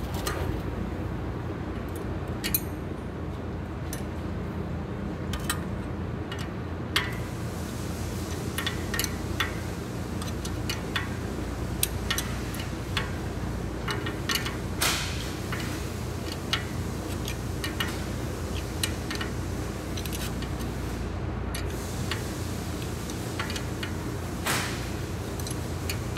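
Irregular metallic clicks and clinks of a wrench on the clutch-finger adjusting bolts and jam nuts of a John Deere 450B steering clutch pressure plate, over a steady low hum.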